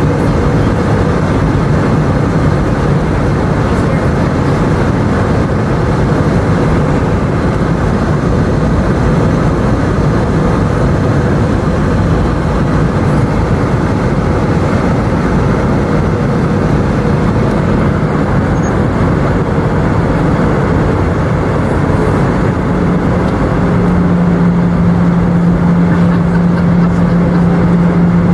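Airbus A319 airliner cabin noise: a loud, steady rush of air and jet-engine noise with a low engine hum underneath. The hum grows stronger and steadier near the end.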